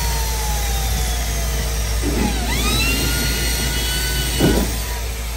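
Cordless drill/driver running a screw into a van's interior ceiling panel: the motor whine falls away, then rises sharply about two and a half seconds in, holds, and stops with a short knock near the end.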